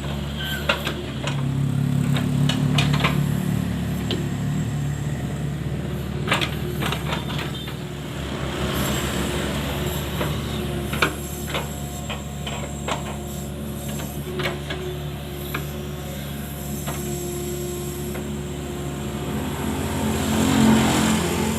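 Mini excavator's diesel engine running steadily, swelling louder twice as it works under load, with scattered sharp knocks and clanks.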